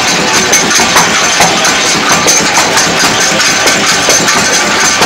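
Naswar tikki-forming machine running, its electric motor and forming mechanism making a steady mechanical noise with a fast, regular clatter.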